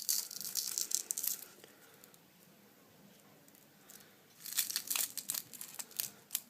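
Cracked glass digitizer of an HTC phone crackling and its adhesive tearing as it is pushed out of the frame, in two spells of crackles with a pause between.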